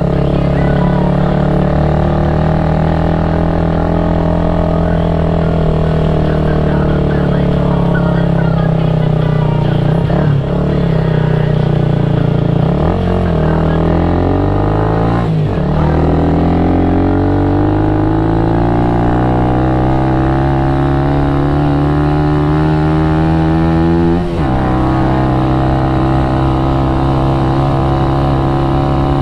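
Motorcycle engine and exhaust running under way, holding a steady note, then climbing in pitch as it accelerates, with a sudden drop in pitch at each of about four gear shifts.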